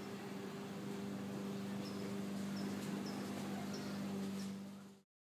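A steady low hum with faint, short, high chirps every half second to a second. The sound cuts off abruptly to dead silence about five seconds in.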